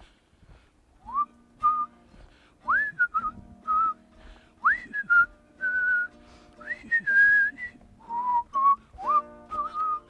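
A whistled melody over a plucked-string accompaniment starts about a second in. Many of the whistled notes slide up into their pitch.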